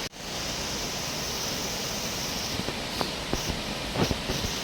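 Steady rushing of Shiraito Falls, a wide curtain of many thin cascades falling down a cliff face, with a few small clicks in the last couple of seconds.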